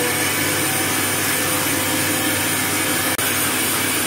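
Electric mixer grinder running steadily at full speed, grinding coconut.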